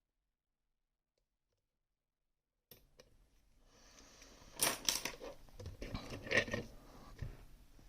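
Complete silence for nearly three seconds, then small metal parts clinking, clicking and scraping as a pin-tumbler lock and picking tools are handled, with a few sharper knocks in the middle.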